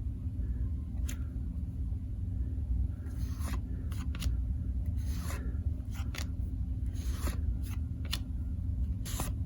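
Hockey trading cards rubbing and sliding against each other as a stack is leafed through by hand, in scattered short rasps and snaps over a steady low hum.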